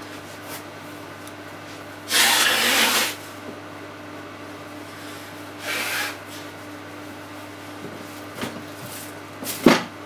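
Microwave oven running with a steady low hum while heating custard pudding. A rushing noise lasting about a second comes about two seconds in, and a shorter one comes around six seconds. A sharp knock, the loudest sound, comes near the end.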